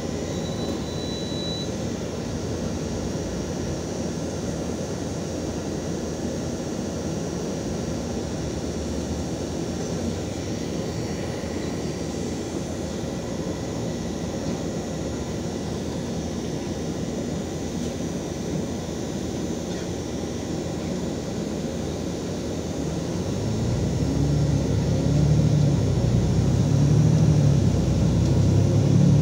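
LiAZ 5292 city bus's diesel engine idling steadily, heard from inside the passenger cabin. About 23 seconds in it revs up and gets louder, its low note rising and falling, as the bus pulls away from the stop.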